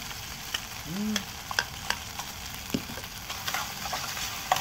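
Food sizzling in a frying pan on a portable gas stove, with a steady hiss, while a metal spatula stirs it, clinking and scraping against the pan in a series of sharp ticks. There is a brief squeak about a second in.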